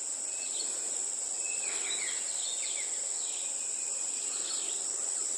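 Steady high-pitched chorus of insects, with a few short falling chirps over it around two seconds in and near the end.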